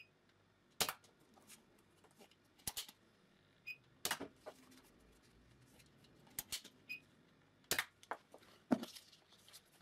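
Nerf Elite 2.0 Slyshot, a small single-shot pull-back blaster, being cocked and fired with AccuStrike darts: about six sharp clicks and snaps spread over the seconds, with near quiet between.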